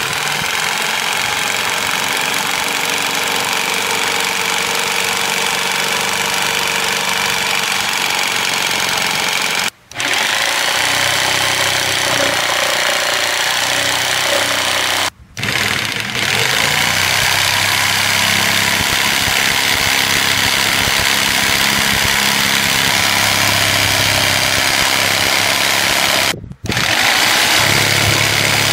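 Corded electric jigsaw cutting through PVC board, its motor and reciprocating blade running steadily. It cuts out briefly three times and starts again each time.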